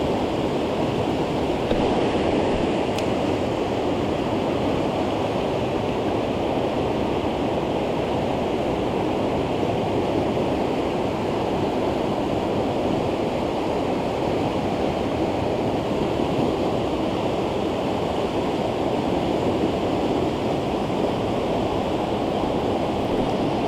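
Mountain stream water rushing steadily over rocks, loud and unbroken.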